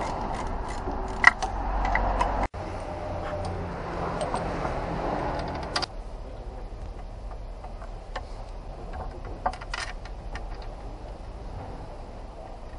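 Scattered metallic clicks and clinks of hand tools, a ratchet and socket among them, on the underside of a car, over a steady low workshop background.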